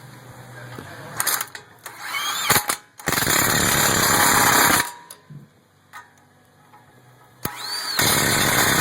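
A power wrench runs the 17 mm brake caliper bolts down in two bursts of about two seconds each. Each burst starts with a short rising whine. Between the bursts there are a few clicks of tool and socket handling.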